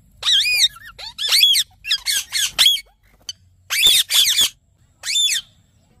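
Indian ringneck parrot giving a string of shrill squawking calls in about five quick bursts, each call sweeping up and then down in pitch, with short pauses between the bursts.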